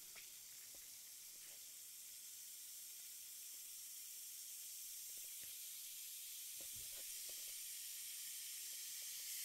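Water fizzing in a small plastic Magic Mixies potion cup as the added ingredient reacts: a steady high hiss of tiny bubbles that grows slowly louder.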